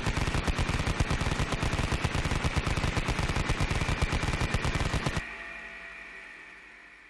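A long burst of rapid automatic gunfire lasting about five seconds, then cutting off suddenly, over a high steady whine that lingers and slowly fades after the shots stop.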